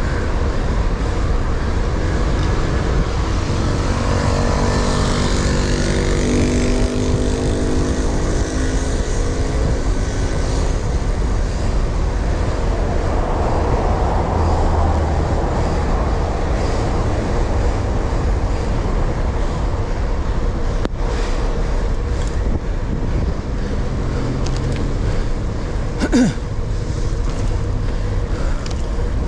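Road traffic heard from a moving bicycle over a steady low rumble of wind and road noise. A motor vehicle's engine passes about four to ten seconds in, and a brief sharp sound comes near the end.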